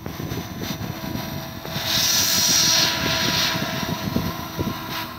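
Align 450-size electric RC helicopter with a flybarless rotor head spooling up and lifting into a hover: a steady whine over the rush of the spinning rotor blades, the blade noise loudest from about two seconds in.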